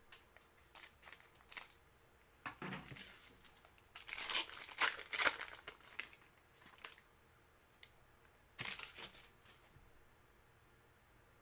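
Trading card pack wrappers and cards being handled: crinkling and tearing in several short bursts, the longest and loudest about four seconds in, then quiet near the end.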